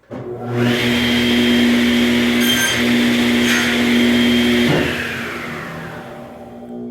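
Table saw of a Hammer C3-31 combination woodworking machine starting suddenly and cross-cutting a board at a 35-degree mitre, with a steady whine under the noise of the cut. The noise of the cut ends about two-thirds of the way in, and the sound then fades gradually.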